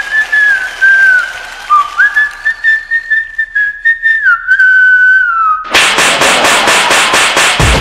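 A whistled tune of held notes with small slides between them. About two-thirds of the way in it gives way to a loud, fast percussion beat of about six hits a second, and a heavy low boom lands near the end.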